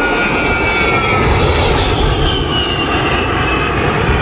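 A fixed-wing aircraft flying past, a loud steady engine rush with whining tones that slide slowly down in pitch.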